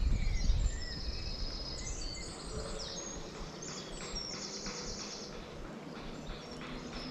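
A songbird singing a quick series of short, high, clear notes, over a low rumble that fades in the first second.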